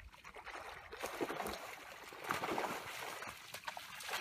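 Shallow water splashing and sloshing as a cast net with thrashing tarpon in it is hauled through the shallows toward the bank; the splashing grows louder about a second in.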